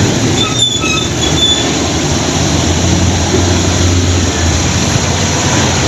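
Heavy fuel tanker truck driving along a wet road: steady engine and road noise with tyres hissing on the wet surface, the low engine hum swelling about three to four seconds in. A few short high squeaks sound in the first second and a half.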